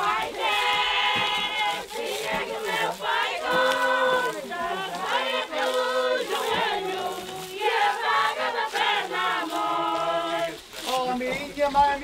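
A group of voices singing a traditional Portuguese folk song together, in long held notes that change every second or so.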